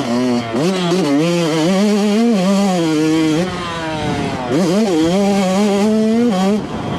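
Yamaha YZ125 single-cylinder two-stroke dirt bike with an FMF slip-on silencer revving hard under riding, its pitch climbing and dropping as the throttle works. It backs off about three and a half seconds in, winds up again about a second later, and drops away again near the end.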